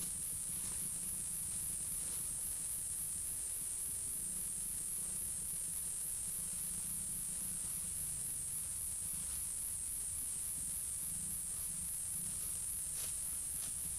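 Steady, high-pitched pulsing chorus of insects, with a few faint clicks near the end.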